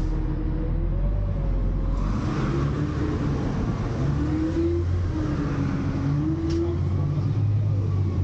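Engine of an Autocar rear-loader garbage truck running as the truck drives along, its pitch rising and falling with throttle changes. General road and body noise rises about two seconds in.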